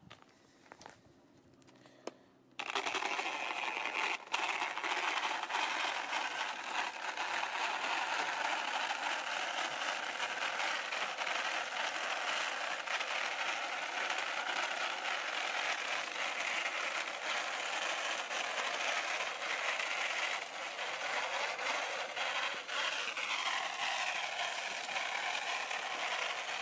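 Small 3D-printed RC car with a brushless motor driving over rough tarmac: a steady rattling, scraping whirr of its plastic drivetrain and TPU tyres on the rough surface, starting suddenly about two and a half seconds in, with a brief shift in pitch near the end as the speed changes.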